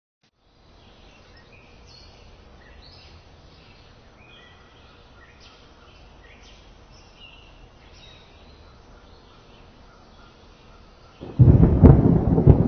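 Birds chirping faintly over a quiet outdoor background, then a loud clap of thunder breaks in about eleven seconds in and rumbles on.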